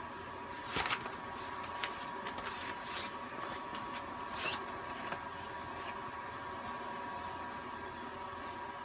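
A sheet of paper being handled, crinkling and rustling in a few sharp crackles, the loudest about a second in, over a steady hum with a high thin whine.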